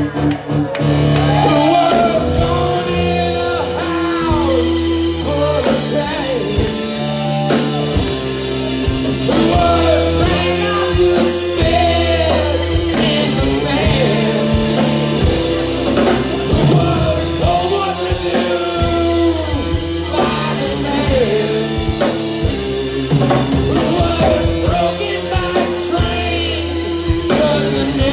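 Live rock band playing: a man sings over electric guitar, keyboard and drum kit, the voice rising and falling in long sung lines over steady low notes and a regular drum beat.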